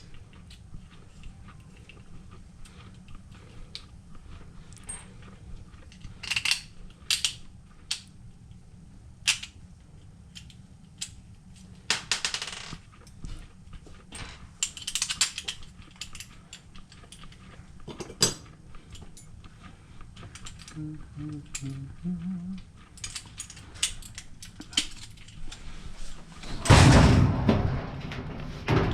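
Scattered clicks, taps and knocks of tools and metal parts being handled during work on a clothes dryer, with a louder scraping or rustling noise lasting about two seconds near the end.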